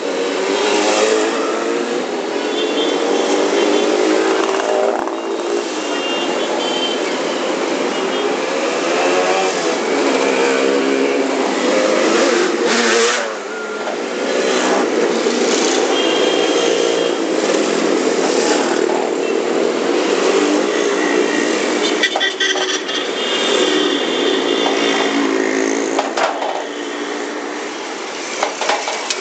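A stream of motorcycles riding past one after another in city traffic. Their engines rise and fall in pitch as each bike approaches and goes by. Short high-pitched tones sound a few times, near the start, in the middle and around three-quarters of the way through.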